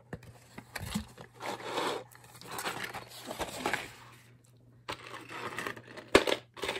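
Rummaging in a cardboard shipping box of mixed costume jewelry: crinkling, rustling and scraping in several bursts, with a sharp knock about six seconds in.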